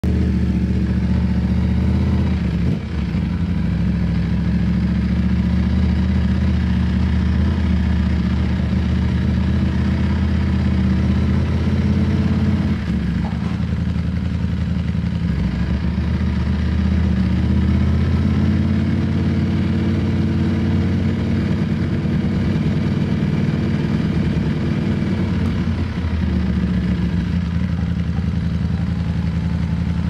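Ducati Streetfighter V4S's V4 engine running at low revs while the motorcycle cruises, its pitch shifting gently, with the sound briefly dropping off twice, about three and thirteen seconds in.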